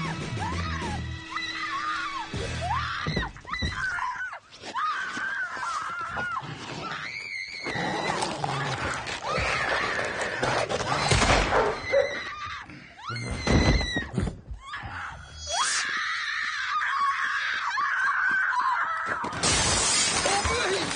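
A woman screaming again and again, with loud crashes and breaking glass, under film music.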